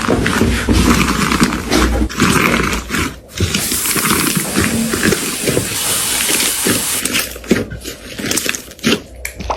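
A dog growling roughly, mixed with scuffling and clicking noises.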